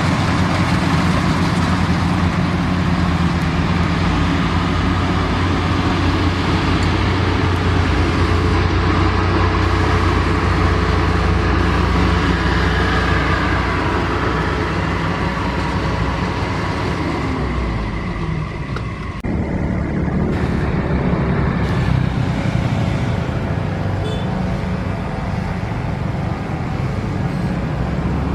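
Jet airliner engines running steadily, a loud low hum under a wide rush of noise, with a tone falling away just before the sound changes abruptly to a slightly quieter steady rush about 19 seconds in.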